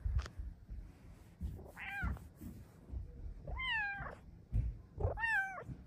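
Silver Bengal cat meowing three times: a short meow about two seconds in, then two longer meows that dip and level off. Low rustling and thumps sound in between.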